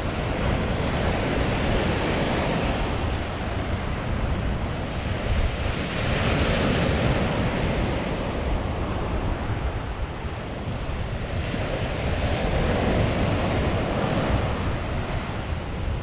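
Small sea waves breaking and washing up a pebble beach, the surf swelling three times, about every five to six seconds. A steady low rumble of wind on the microphone runs underneath.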